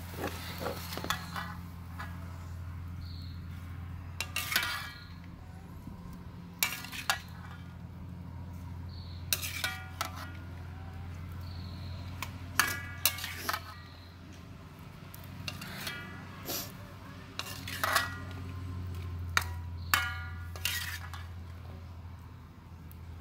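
Metal spatula scraping and clinking against a metal wok and a serving bowl while dishing up a stir-fry: sharp ringing clinks every second or two, in small clusters, over a steady low hum.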